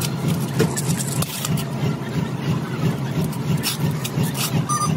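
A steady low engine rumble under the wet splashing and clinking of a greasy tapered roller bearing being scrubbed by hand in a metal basin of oil, with a brief high tone near the end.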